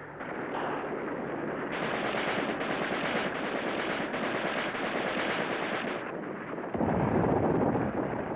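Rapid automatic gunfire in sustained machine-gun bursts for about six seconds, then a louder, deeper rush of noise near the end.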